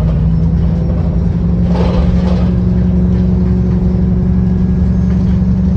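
Engine of a VDL-chassis Wright Pulsar 2 single-deck bus running with a steady low drone, with a short burst of noise about two seconds in.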